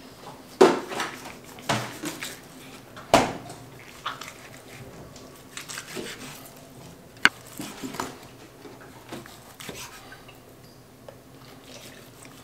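Chef's knife slicing through a raw deer heart on a wooden cutting board, the blade knocking on the board at irregular intervals as each cut goes through, loudest about three seconds in.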